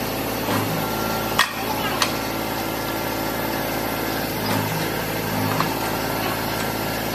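Mini tractor engine idling steadily, with two sharp clinks close together about a second and a half in and a few lighter knocks later as metal hitch and driveshaft parts are handled.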